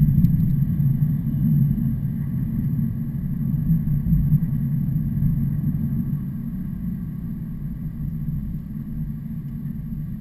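Heavy truck running with a low, steady rumble that fades slowly toward the end.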